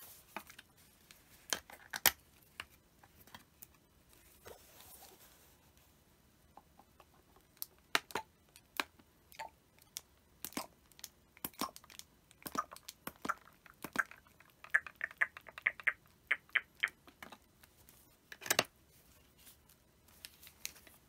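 Plastic bottles and their screw caps handled on a tabletop: scattered clicks and knocks as caps are worked and bottles picked up and set down, a quick run of small clicks a little past the middle, and a louder knock near the end.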